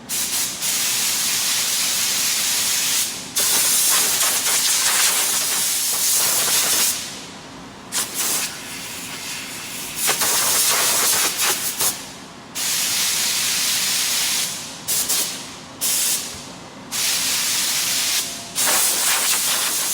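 Compressed-air blow gun fed by an air compressor, letting out loud blasts of hissing air in long bursts, the trigger released and pressed again about every two to three seconds.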